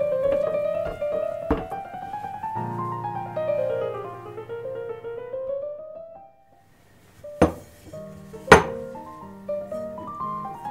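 Background piano music that fades out for about a second just past the middle, then two sharp knocks about a second apart before the piano resumes.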